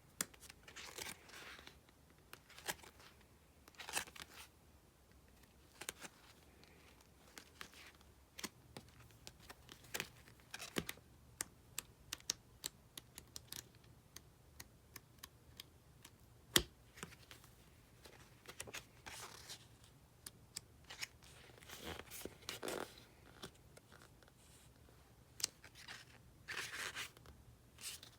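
Sticker sheets and their packaging being handled: intermittent rustling and crinkling with many small taps and clicks.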